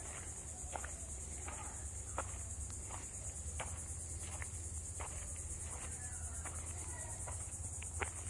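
Steady high-pitched insect chorus, a fast-pulsing drone of crickets or katydids in subtropical woodland. Footsteps on a sandy path sound faintly through it every second or so.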